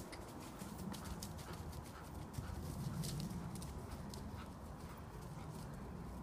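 Hoofbeats of a pony cantering on grass.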